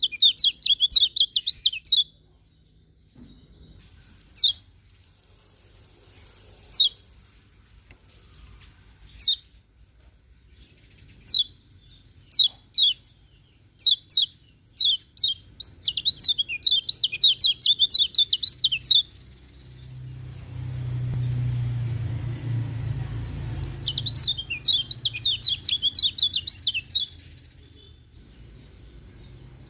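Kecial kuning (a white-eye) singing: quick, high twittering warbles at the start, again just past halfway and again later on, with single sharp chirps every second or two in between. A low rumble swells for a few seconds just after the middle.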